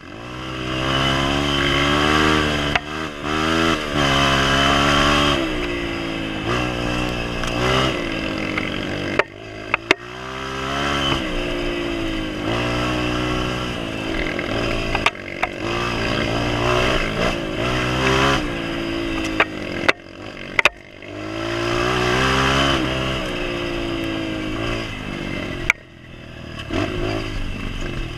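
Honda CRF230F trail bike's single-cylinder four-stroke engine being ridden off-road, revving up and easing off several times as the throttle opens and closes. Occasional sharp knocks and clatter come from the bike on the rough trail.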